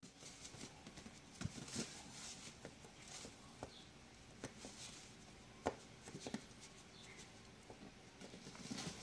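Dry pancake mix poured from a cardboard box into a glass measuring cup: a faint rustling hiss of powder, in short spells, with scattered small clicks and taps.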